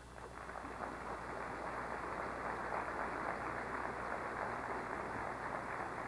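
Audience applauding: a dense patter of many hands clapping that swells over the first couple of seconds and then holds steady.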